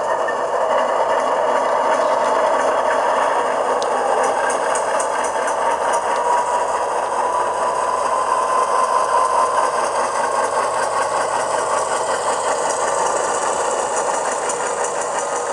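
The sound decoder of an HO-scale Athearn Union Pacific Dash 9-44CW model locomotive plays its diesel engine sound through the model's small speaker as it runs: a steady engine rumble. A thin whine rises slightly partway through.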